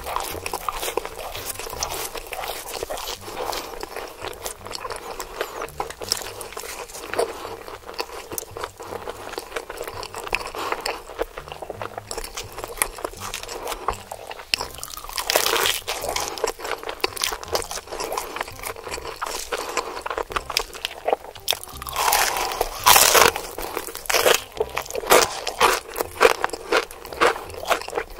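Close-miked biting and chewing of crispy fried chicken: dense, crackly crunching throughout, with louder crunches about halfway through and again a little past two-thirds of the way.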